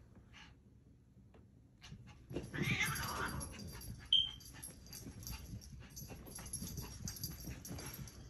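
A cat and a small dog playing rough. A short breathy animal cry comes about two and a half seconds in and a brief high squeak about four seconds in, then quick light clicks and scuffles as they run about.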